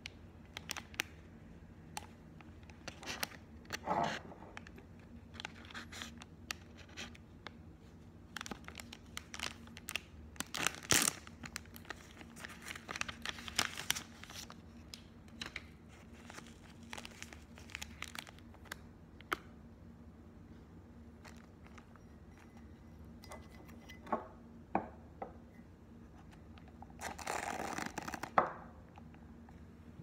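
Crinkling and tearing of a plastic single-serve drip coffee packet, and the rustle of its paper filter bag being unfolded and hooked over a ceramic mug. The crackles come in irregular bursts, with a longer rustle near the end.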